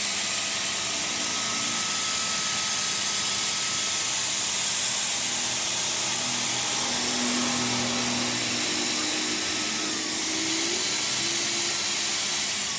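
Steady, loud hiss of rushing air, like compressed air or a spray gun, with a faint shifting hum underneath.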